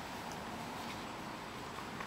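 Steady hiss of forest background ambience, with a couple of faint, short high chirps.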